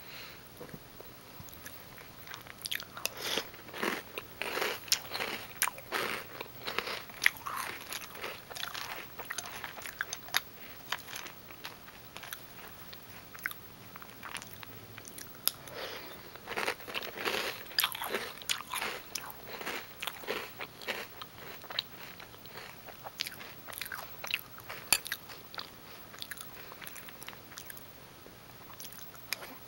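Close-up chewing of crunchy Reese's Peanut Butter Puffs cereal: crisp crunches coming in flurries, with quieter pauses between them.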